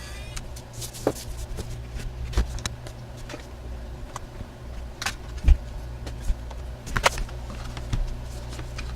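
Scattered small clicks and light knocks of hand tools and plastic parts as a Samsung Chromebook's case is taken apart, over a steady low hum.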